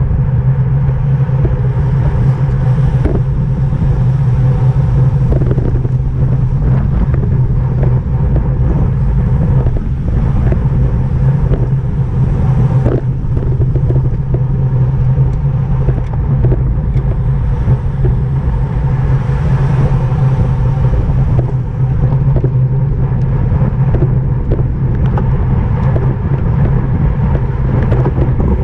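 Steady wind rush and low road rumble from a racing bicycle moving at speed, heavy on the microphone.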